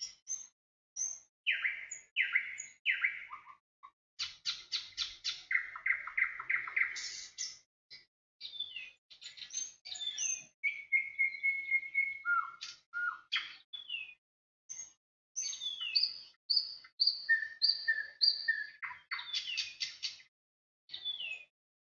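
A songbird singing a varied run of high chirps, quick rapid-fire note series and short whistled notes, broken by brief pauses.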